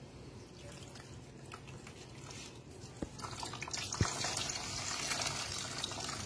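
Hands squeezing grated coconut in a plastic basin of water to press out coconut milk: liquid sloshing and dribbling, faint at first and growing louder about halfway through, with two knocks about three and four seconds in.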